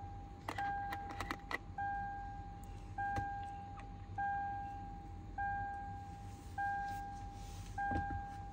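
Toyota Land Cruiser's electronic warning chime ringing over and over, one ding about every 1.2 seconds. A few light clicks come about a second in.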